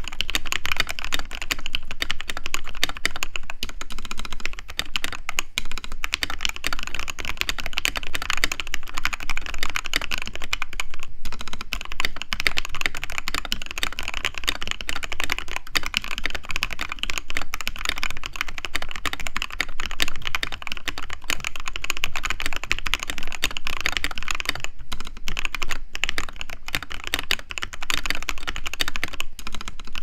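Fast, continuous typing on a custom 60% mechanical keyboard: lubed and filmed Durock linear 67g switches on a polycarbonate plate in a YMDK Diamond frosted polycarbonate case, with XDA keycaps. Dense, rapid keystroke clacks with a few brief pauses.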